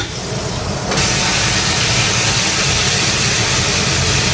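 Fish frying in hot oil: a steady, loud sizzle that swells about a second in and then holds.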